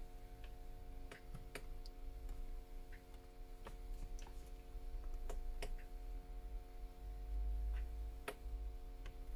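Small, scattered clicks and taps of hand tools on a phone's small parts during repair, irregularly spaced, over a steady low hum.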